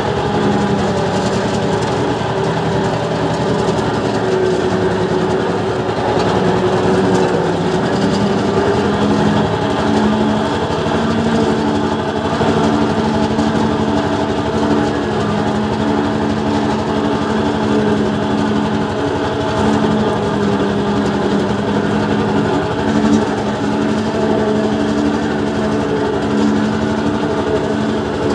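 A small tractor's engine running steadily as it drives along a snowy track, heard from inside its cab.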